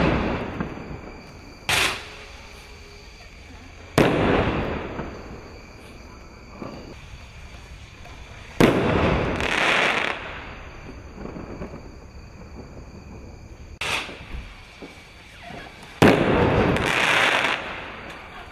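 Firework rockets bursting in the air: five sharp bangs spread several seconds apart, each dying away over a second or two.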